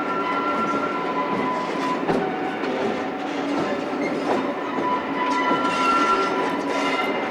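Train running by: diesel locomotive engine noise with a steady whine that fades and swells again near the end, over the clicks of wheels on rail joints.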